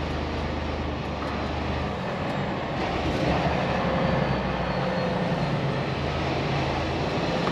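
Semi truck's diesel engine running steadily as the truck rolls slowly toward a parking spot, a low even drone.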